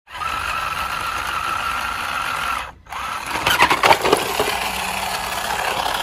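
Small electric motor of a battery-powered plastic toy dump truck whirring steadily with a constant whine. It stops for a moment just under three seconds in, then runs again with a burst of plastic clicks and clatter.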